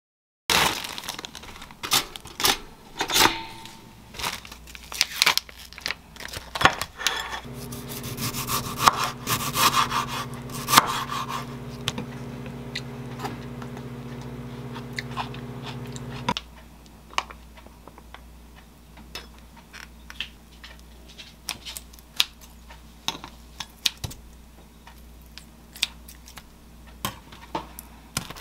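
Kitchen prep sounds: a knife tapping and cutting on a wooden cutting board, slicing a tomato, with small clicks of handling food and utensils. Through the middle an electric appliance hums steadily for about nine seconds, then cuts off suddenly.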